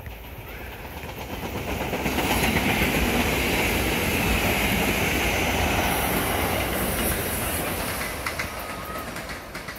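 SEPTA Regional Rail electric multiple-unit commuter train passing close by at speed. Its rolling and wheel noise builds from about a second in, stays loud for several seconds, then fades as the train moves away, with a few sharp wheel clicks near the end.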